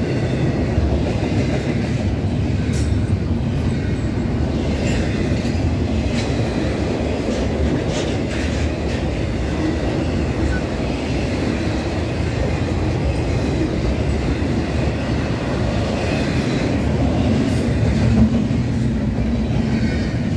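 Intermodal freight train's well cars rolling past: a steady rumble of steel wheels on rail, with the clickety-clack of wheels over rail joints and occasional sharp clicks.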